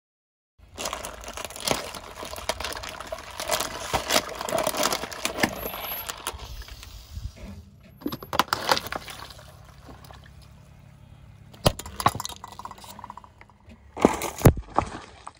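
Objects crushed under a car tyre: a long run of crackling and crunching, then a few sharp cracks and pops as plastic containers give way, with liquid splashing.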